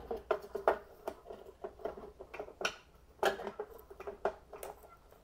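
Hard plastic battery mount clicking and knocking irregularly as it is handled and pressed back into place on an e-bike's down-tube battery compartment, over a faint steady hum.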